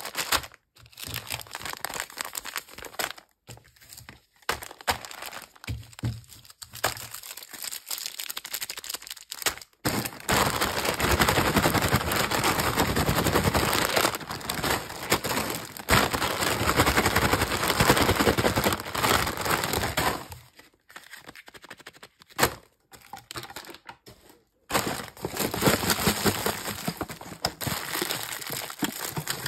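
Plastic candy wrappers and a foil snack bag crinkling as hands pick up and handle the packets, with short pauses. The crinkling is loudest and most continuous for about ten seconds in the middle.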